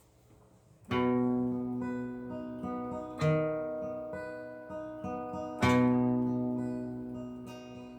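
Acoustic guitar intro: a strummed chord rings out about a second in, with further strong strums about two and four and a half seconds later, each left to ring and fade, and lighter strums in between.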